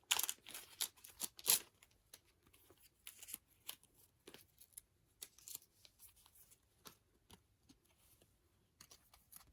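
Plastic packaging being handled and pulled open: a run of crinkling, scratchy rustles and small clicks, busiest in the first second and a half, then sparser and fainter.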